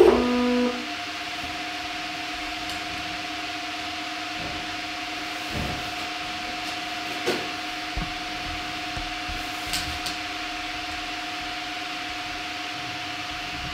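Hybrid stepper motor with built-in encoder on the Y axis of a home-built CNC mill, giving a steady two-tone whine, with a few faint knocks partway through.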